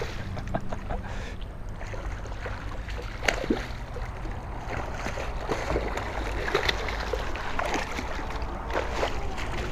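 Shallow water splashing and sloshing in irregular small bursts as a hooked tarpon thrashes near the wading angler's legs, over a steady low rumble.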